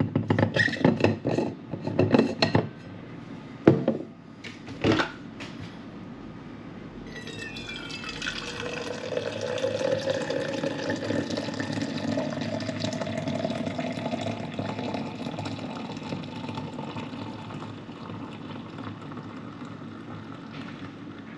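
A few sharp knocks and clatters, then water running into a container for about twelve seconds, with a pitch that shifts slightly as it goes.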